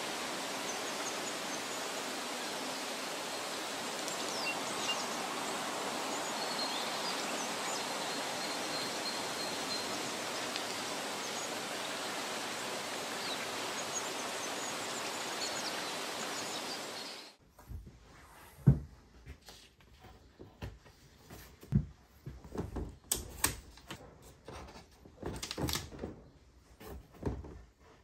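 Steady outdoor background noise with a few faint bird chirps, which cuts off suddenly a little past halfway. After that comes a quiet room with scattered soft knocks and rustles of papers and string being handled on a pinboard.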